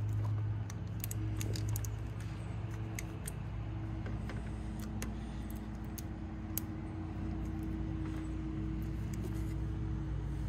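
Scattered light clicks and rustles of hands working at a pickup tailgate, pressing a clear protective film sheet onto the paint, over a steady low hum.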